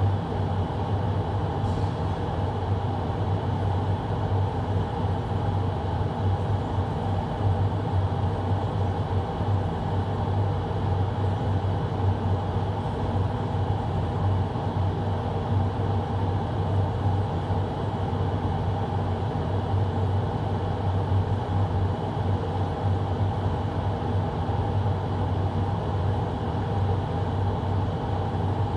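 Carrier air-conditioner air handler's blower running steadily, with a constant low hum under a steady rush of air.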